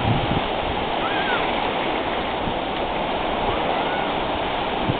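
Ocean surf breaking and washing through the shallows: a steady rush of water, with a couple of faint, brief high calls over it.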